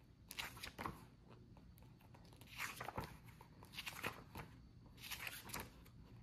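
Paper pages of a hardcover book being flipped by hand: faint rustling and page flicks in about four short spells.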